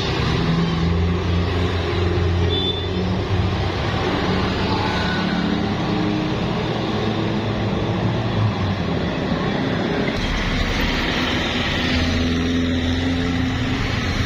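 Heavy road traffic passing close by: bus and truck engines running with a continuous low drone that shifts in pitch as vehicles go past.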